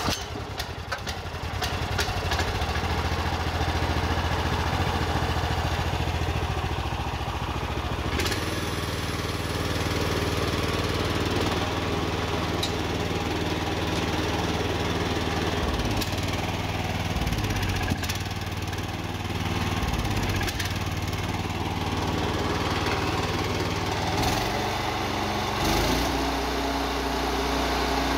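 Briggs & Stratton 420cc single-cylinder four-stroke engine on a Blackstone SG 420 stump grinder, just pull-started and running steadily. Its note wavers a few times in the middle, then settles at a new steady pitch near the end as the cutter wheel is engaged and spins.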